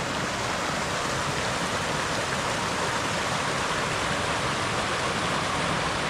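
Rain-swollen mountain creek rushing steadily over rocks at a stream crossing.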